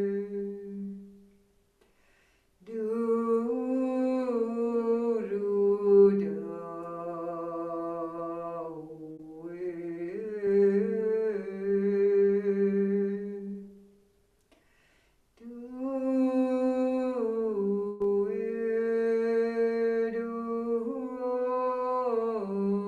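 Wordless singing in long held tones that step slowly up and down in pitch, stopping twice for a short silence.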